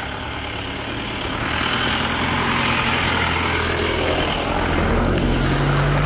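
A motor vehicle's engine running close by, with road noise swelling about a second and a half in and the engine note starting to climb slowly near the end.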